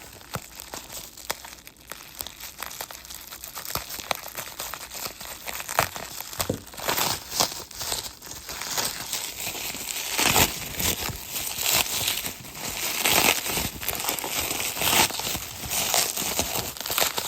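Packaging crinkling and rustling as it is unwrapped by hand, an irregular run of crackles that grows louder and busier partway through.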